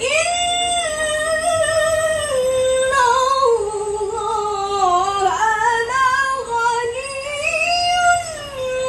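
A woman reciting the Quran in melodic tilawah style, drawn out as one long unbroken phrase. Her pitch sinks through the middle of the phrase and climbs again near the end.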